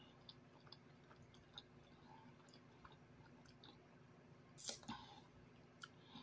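Faint mouth sounds of a person chewing food with the mouth closed: scattered soft clicks and smacks, with one short louder rush of noise about three-quarters of the way through.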